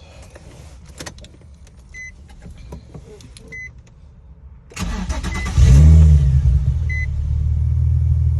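Nissan 350Z's 3.5-litre V6 cranked by the starter about five seconds in; it catches with a brief rev flare and settles into a steady idle. A dashboard warning chime beeps several times before and during the start.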